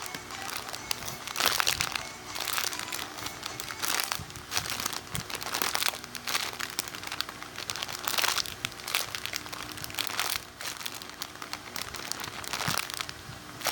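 Plastic crinkling and rustling in irregular bursts as a squishy toy is handled and squeezed.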